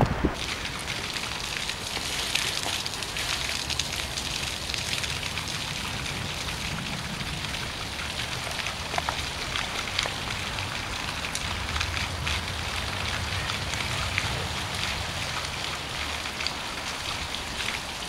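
Water of a park fountain splashing steadily into its stone basin, an even hiss without breaks, with a low rumble underneath.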